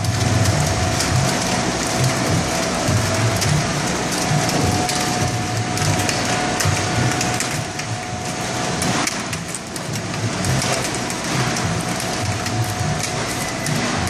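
Tomato packing line running: a dense, rain-like patter of small tomatoes tumbling through a filler into plastic clamshells, over conveyor machinery with a steady tonal hum.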